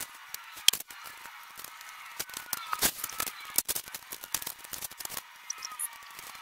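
Crackling and crinkling of vinyl wrap film and its paper backing being handled and pulled against a truck door, with irregular sharp clicks and a few faint short squeaks.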